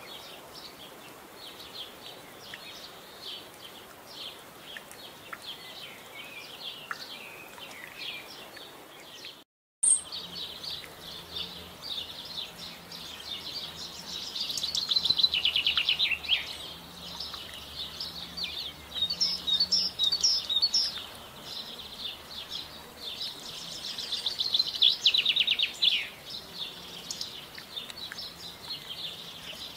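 Small songbirds singing and calling: thin high chirps, then, after a brief dropout about a third of the way in, fuller song with two loud, fast trills, one midway and one about four-fifths of the way through.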